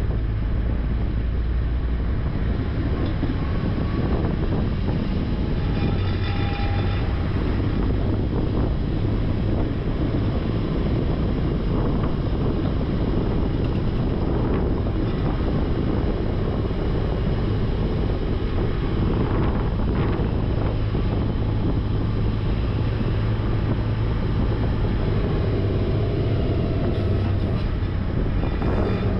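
Heavy diesel truck engine running steadily through a truck winch recovery, with a brief high whine about six seconds in.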